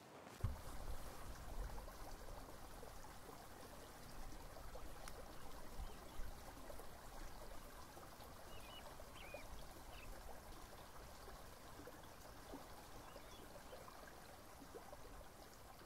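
Faint, steady rush of river water flowing, with a low rumble underneath and a few faint chirps about halfway through.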